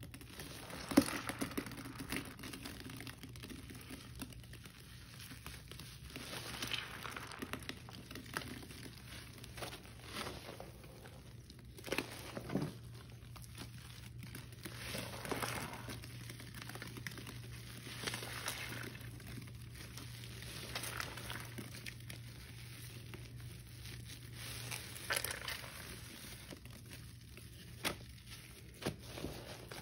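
Hands squeezing and kneading sponges soaked in thick, foamy Ajax cleanser paste: irregular wet squelches and crackles, with a sharp pop about a second in. A steady low hum runs underneath.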